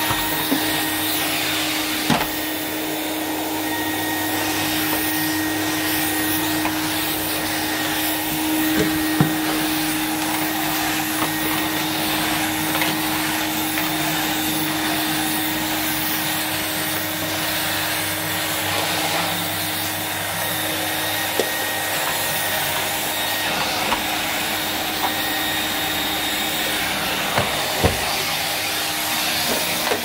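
Numatic NV200 cylinder vacuum cleaner running steadily with a constant motor hum as its floor tool is pushed over carpet, with a few light knocks scattered through.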